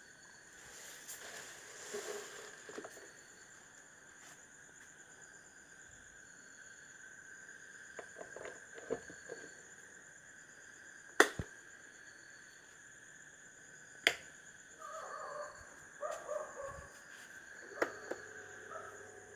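Several sharp clicks, the loudest two about a third and halfway through, then near the end a click followed by a steady low hum as the Bajaj stand fan's motor starts, its blown coil fuse now bypassed. Steady high insect chirping runs in the background.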